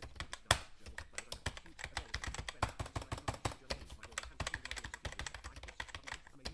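Typing on a computer keyboard: a fast, irregular stream of key clicks.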